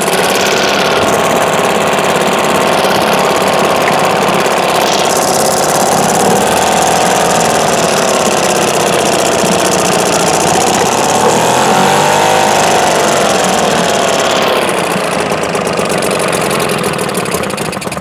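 British Seagull Forty Plus single-cylinder two-stroke outboard running in a test tank of water, its revs rising and falling around the middle. The engine stops suddenly at the very end.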